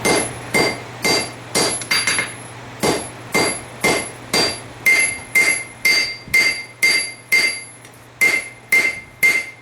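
Hand hammer striking hot steel on an anvil at a steady pace of about two blows a second, each blow ringing bright and metallic, drawing out the tang of a knife forged from a farrier rasp. The hammering pauses briefly about three-quarters of the way through.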